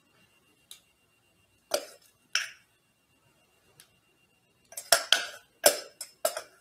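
Stainless steel scoop clinking and scraping against a glass batter bowl while scooping taco meat filling. There are a few separate sharp clicks, then a quick run of louder clinks near the end.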